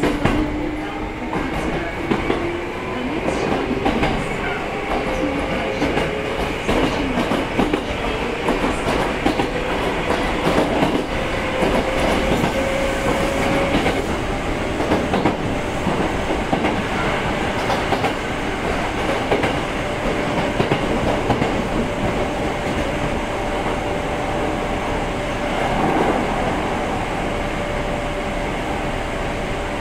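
Hankyu 6300 series electric train running between stations, heard from inside the car. A whine rises slowly in pitch over the first half as the train gathers speed, then holds steady, over wheel rumble and frequent clicks of the wheels over the rails.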